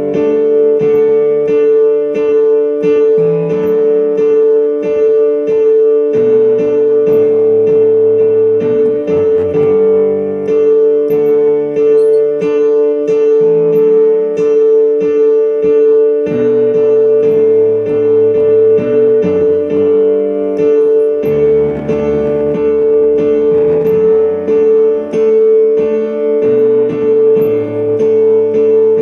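Instrumental keyboard music: chords and a bass line changing every second or two over one constant held note.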